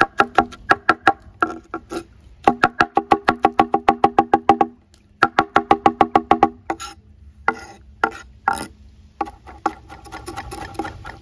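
Knife chopping fast on a wooden cutting board, typical of finely chopping vegetables for a salad: quick runs of sharp woody knocks, about seven or eight a second, broken by short pauses and a few slower strokes near the middle.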